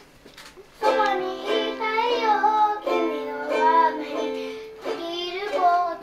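A child singing a song while playing chords on a small plucked string instrument, starting about a second in.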